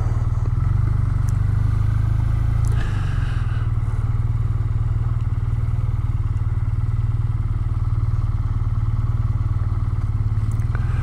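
BMW R12 nineT's air/oil-cooled boxer twin running at low revs, rolling slowly and idling; the engine note drops slightly about three seconds in.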